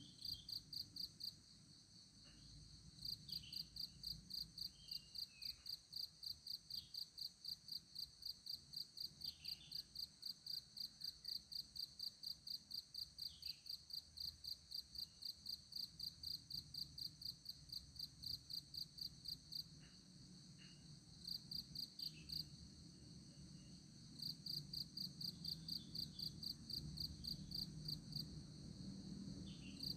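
A cricket chirping steadily at about three chirps a second, breaking off briefly a few times, over a faint low hum.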